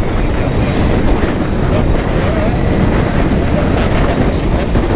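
Wind buffeting the microphone on a slowly moving motorcycle, with the BMW K1200GT's inline-four engine running steadily underneath.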